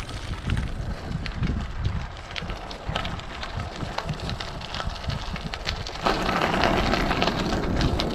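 Wind buffeting the microphone of a camera riding along on a bicycle, with light crackling throughout. About six seconds in, a louder, steady rushing noise sets in.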